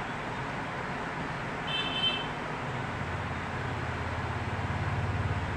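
Motor vehicle engine running, a low fluttering rumble that grows louder from about halfway, over a steady background hiss. A brief high beep sounds about two seconds in.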